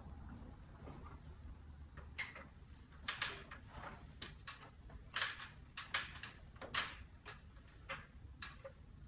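Someone climbing a stepladder: about ten irregular light knocks and clunks of shoes on the rungs and the ladder shifting, the loudest in the middle, over a steady low room hum.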